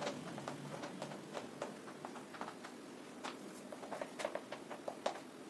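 Chalk writing on a blackboard: a string of light, irregular taps and scratches.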